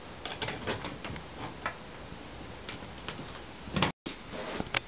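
Faint scattered small clicks and ticks of handling over a steady low hiss. The sound cuts out completely for a moment about four seconds in, at an edit.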